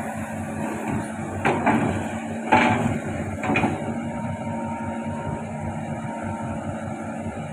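Hitachi Zaxis hydraulic excavator's diesel engine running steadily while its bucket clanks and scrapes against river stones three times in the first few seconds, the second strike the loudest.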